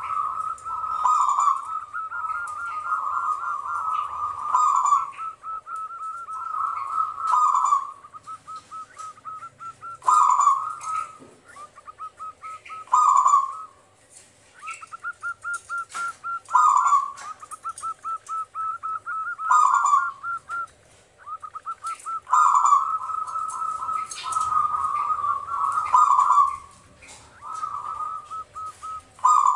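Zebra dove (perkutut) cooing: phrases of rapid staccato notes, each ending in a louder, drawn-out coo, repeating about every three seconds. Faint high chirping sits beneath.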